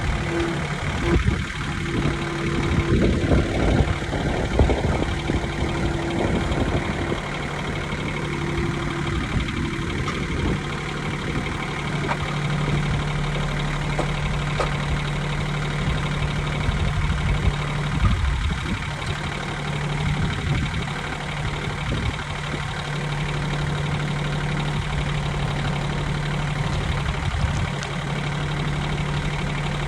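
Kioti CS2610 subcompact tractor's three-cylinder diesel engine running steadily at idle, with a few clanks and knocks during the first several seconds and again around the middle.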